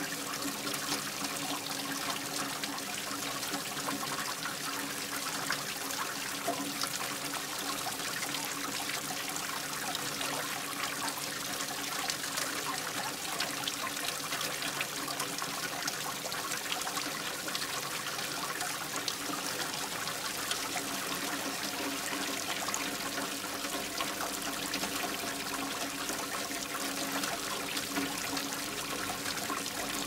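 Steady trickling, running water, an even rush with no breaks, with a faint steady hum underneath.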